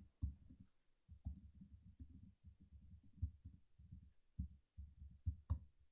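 Typing on a laptop keyboard, heard faintly through the lectern microphone as irregular dull taps, with one sharper key click near the end.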